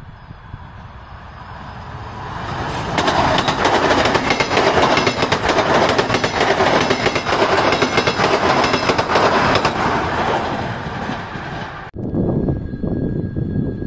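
ES2G Lastochka electric multiple unit passing at speed close to the track. The rush of the train builds over about three seconds into a loud wheel clatter and rush, then fades. About twelve seconds in, an abrupt cut to a quieter, lower rumble with a faint steady high tone.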